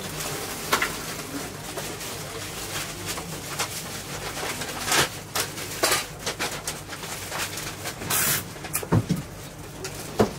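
Scattered light clicks and knocks, with a short rustle of plastic about eight seconds in, over a steady low hum: ningyo-yaki cakes being scooped by hand from a paper-lined tray into a plastic bag.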